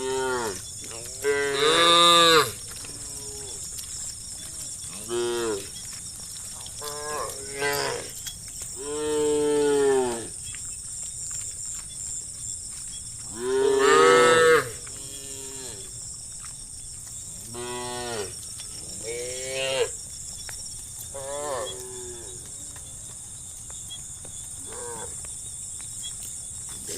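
A herd of cattle mooing, one call after another from several animals. Some calls are long and drawn-out; the loudest come about two seconds in and again near the middle.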